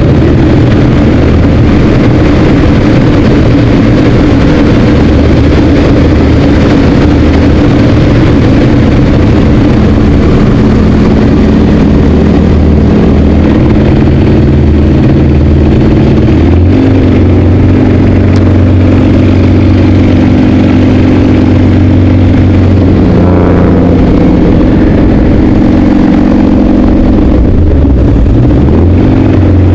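Yak-50's nine-cylinder Vedeneyev M-14P radial engine and propeller running hard in flight, heard loud from inside the cockpit with rushing air. The steady drone shifts in pitch a couple of times, about halfway through and again near the end.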